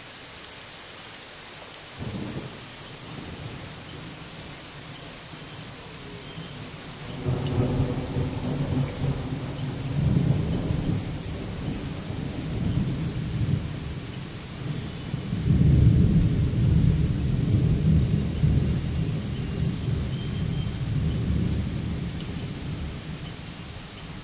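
Heavy rain falling steadily, with long rolls of thunder rumbling in about seven seconds in, swelling again past the halfway point and fading toward the end.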